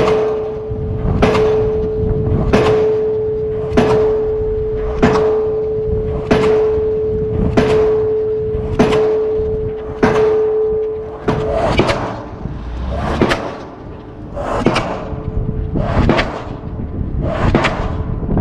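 Diesel pile hammer in swinging leads driving a steel H-beam pile, striking steady blows about one every 1.25 seconds. Under the first two thirds a steady hum fades out about eleven seconds in.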